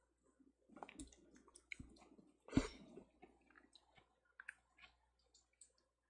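Kitchen knife working on a Korean melon (chamoe) by hand: a run of soft scrapes and clicks as the blade peels and cuts the fruit, with one sharper knock about two and a half seconds in.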